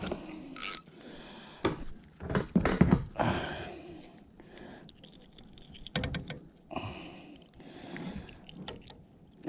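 Scattered knocks, rubs and small watery splashes as a fish is landed and handled in a kayak, loudest in a cluster about two seconds in and again about six seconds in.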